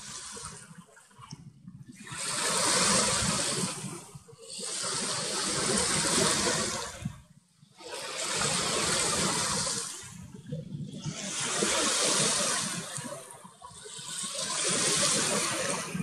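Small sea waves washing in and drawing back: about five swells of rushing water, each lasting two to three seconds.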